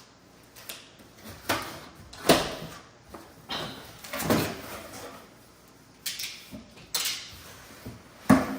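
Cardboard box and packaging of a microwave being opened and handled: a series of knocks, thumps and scraping rustles, the loudest about two seconds in and again near the end.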